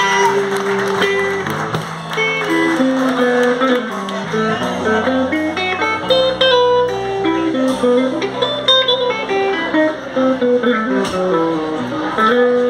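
Single-cutaway electric guitar playing a lead line of single picked notes that step quickly from pitch to pitch, over bass guitar and drums.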